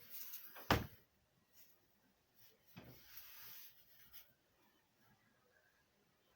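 Small handling noises: rubbing and rustling, with one sharp knock just under a second in and a short scratchy rub around three seconds in.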